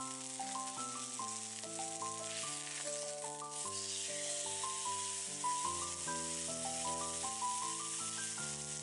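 Beef steak sizzling steadily as it sears in a hot skillet, with background music playing a run of held melodic notes over it.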